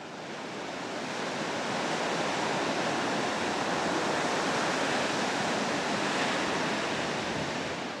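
Sea surf: a steady rush of waves on a shore, fading in over the first couple of seconds and easing slightly near the end.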